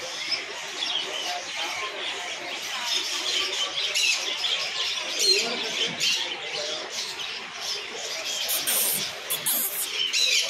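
Dense, constant chirping of many small caged birds, over a low murmur of voices.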